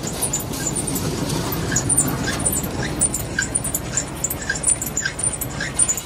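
Old Wühlmaus potato harvester running, a steady mechanical rumble with short high squeaks repeating roughly every half second.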